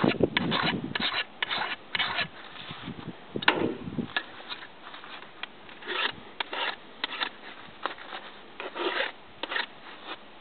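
Flat file scraping across the steel tip of a chainsaw guide bar in short, uneven strokes, filing off burrs where the bar has spread. The strokes come quickly at first and more sparsely later.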